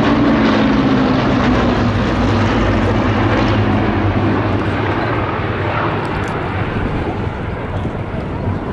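Formation of six Hawker Hurricanes with Rolls-Royce Merlin V12 piston engines droning overhead. The pitch drops a little in the first couple of seconds and the sound slowly fades as the formation moves away.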